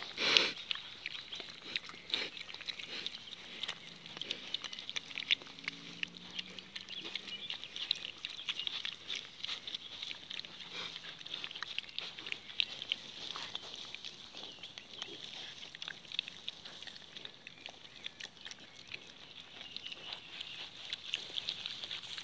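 Wild boar piglets giving soft, low grunts while being stroked, with rustling and small clicks from fur and grass. A steady high hiss runs underneath, and a short louder sound comes right at the start.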